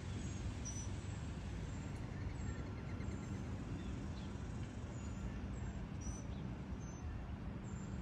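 Steady low rumble of distant road traffic, with faint, short, high bird chirps every second or so.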